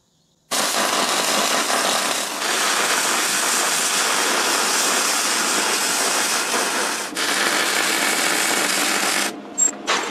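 MIG welder arc crackling and sizzling steadily as a bead is laid on steel, starting about half a second in, faltering briefly around seven seconds and cutting out near the end. The welder sounds a bit bitty, as if it were interrupting itself.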